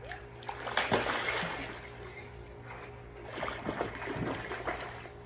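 A small child splashing into a swimming pool about a second in, then a second stretch of splashing and sloshing water as she swims across.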